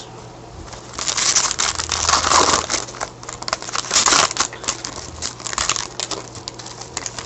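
A trading-card pack wrapper crinkling as it is torn open, loudest between about one and four and a half seconds in. Small ticks and rustles of the cards being handled follow.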